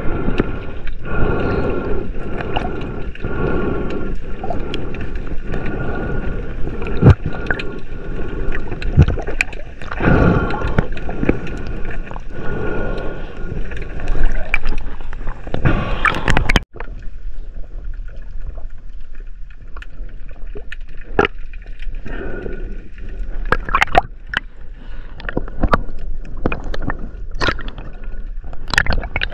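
Underwater sound through a camera's waterproof housing: water gurgling and sloshing, with frequent clicks and knocks and a faint steady hum. The sound breaks off abruptly about two-thirds of the way through and carries on thinner after it.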